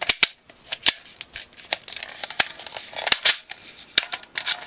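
.223 cartridges being loaded from a stripper clip through a loader into an AR-15 magazine: an uneven run of sharp metallic clicks and scrapes as the rounds are pushed down into the magazine.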